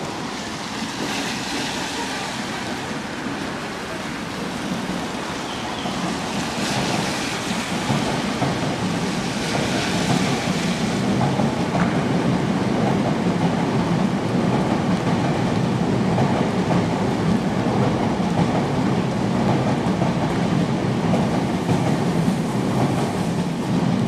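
Train running past, a steady rumble with a hiss over it, growing louder about eight seconds in.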